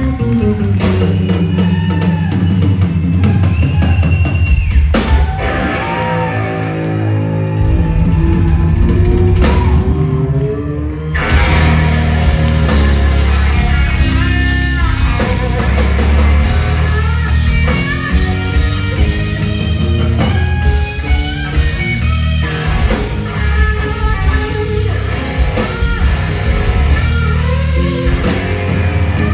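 Live rock band playing an instrumental passage: electric guitar lead with bent notes over bass guitar and drum kit. The texture thins about five seconds in, and the full band comes back in around eleven seconds.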